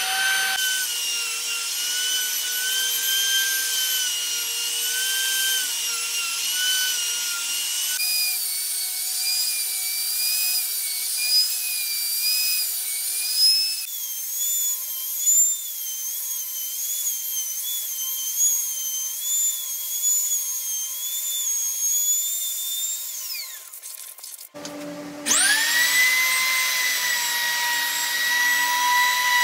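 Router with a flattening bit cutting across an end-grain cutting board on a sled: a high whine that wavers in pitch as the bit cuts under load. Near the end the whine falls away as the router winds down, then after a short break the router spins up and settles into a steady whine.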